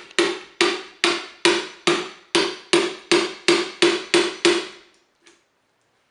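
Hammer striking the handle of a screwdriver to drive it through the wall of a hollowed-out pumpkin and punch a hole. The strikes come in a steady run of about a dozen blows, roughly two a second, stop about four and a half seconds in, and are followed by one light tap.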